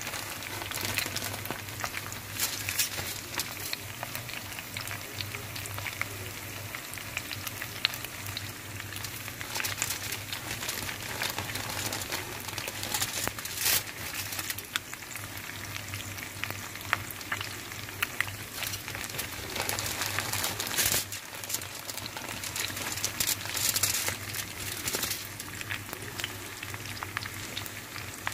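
Steaks frying in hot oil in a pan: a steady sizzle with frequent sharp crackles and spatter pops. A low steady hum runs underneath.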